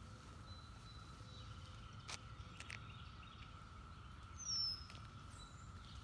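Faint, steady drone of a distant Brood X periodical cicada chorus. About four and a half seconds in, a short, high, falling bird chirp stands out as the loudest sound, and there are a few light ticks a couple of seconds in.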